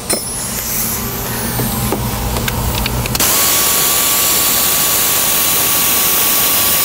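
Pneumatic air ratchet running to loosen the ignition coil bracket bolts: starting about three seconds in, a loud steady air hiss with a thin constant whine. Before it, a few light clicks of handling the tool and parts.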